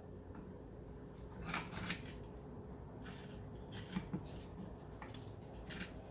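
Faint, scattered handling sounds of hands working on a removed garbage disposal: a few short rustles and some light clicks.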